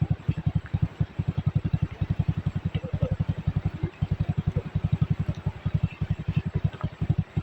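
Small single-cylinder engine running steadily at a fast putt-putt of about nine beats a second, with a couple of brief skips.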